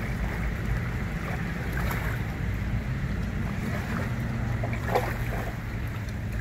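A kayak paddle splashing and dipping in calm water, with a few short knocks and splashes and a steady low hum underneath.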